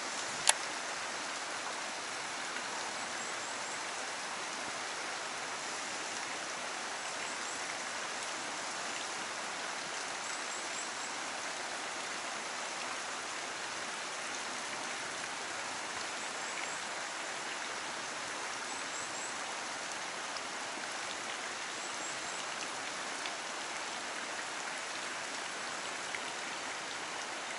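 Steady, even rushing of a stream flowing over rock. One sharp click comes about half a second in, and faint high chirps sound here and there.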